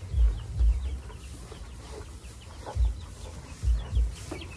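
Cattle eating a pile of fresh-cut grass, with clusters of low, muffled thumps every half second or so. Chickens cluck faintly in the background.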